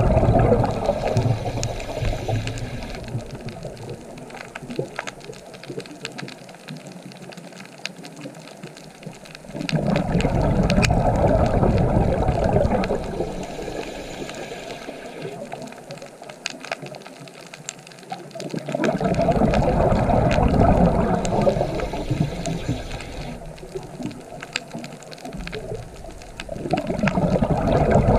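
Underwater recording: a scuba diver's exhaled bubbles bubbling out of the regulator in loud surges about every nine seconds. Between the surges are quieter stretches of faint, scattered crackling clicks.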